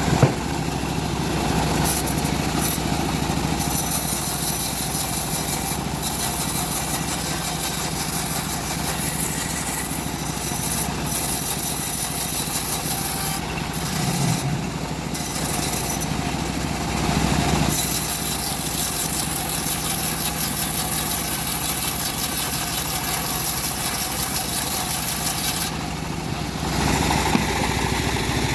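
Engine of a homemade bandsaw sawmill running steadily while the mill saws a teak log. A high hiss comes and goes several times over the steady engine note.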